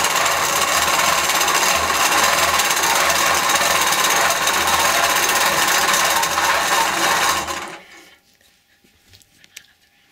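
Innova long-arm quilting machine running and stitching at speed as it is guided by hand in free-motion quilting, a dense, steady mechanical chatter. It stops about three-quarters of the way through, leaving only a few faint ticks.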